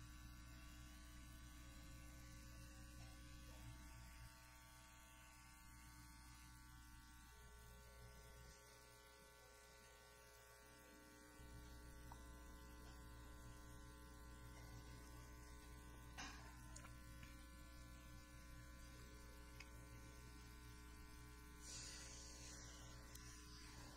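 Near silence: a faint, steady electrical hum, with a couple of faint ticks.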